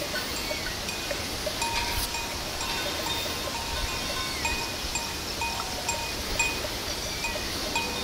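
Bells on a herd of grazing cattle clinking irregularly at several pitches.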